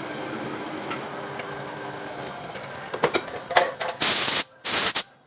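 A few sharp clicks and knocks, then two short, loud bursts of hissing from a high-pressure jet being triggered on and off.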